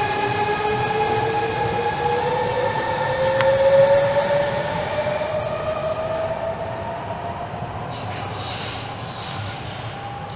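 Electric train pulling away through an underground station. Its traction motors whine, rising steadily in pitch over the first several seconds as it accelerates, over a rumble of wheels that fades as it recedes. A few short high hisses come near the end.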